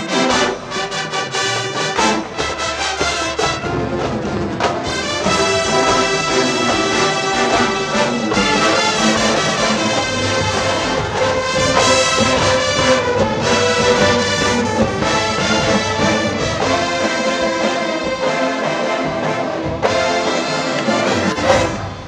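College marching band playing, with a full brass section carrying sustained chords over the drumline. The music stops sharply just before the end.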